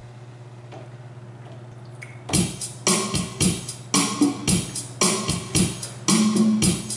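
A faint steady hum, then about two seconds in, rock band music starts: drums with cymbal hits on a steady beat, about two a second, over pitched instrument notes.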